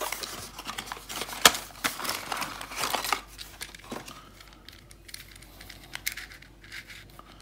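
Paper and cardboard packaging crinkling and rustling as a small puzzle cube is unwrapped from its box. After about three seconds it gives way to fainter, occasional clicks as the plastic puzzle is handled.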